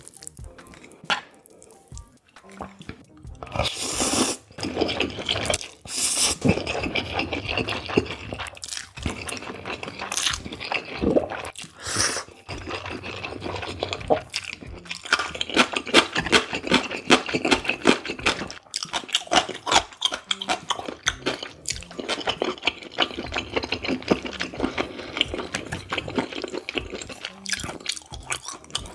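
Close-miked slurping and wet chewing of cold spicy mixed noodles with raw beef tartare and radish slices. A few loud slurps come in the first dozen seconds, then steady chewing with many small wet clicks.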